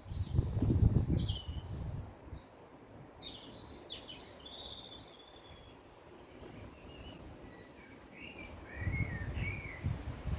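Wild songbirds chirping and calling in short phrases, with a group of calls near the start, another around three to four seconds in, and warbling calls near the end. Bursts of low rumble come near the start and again near the end.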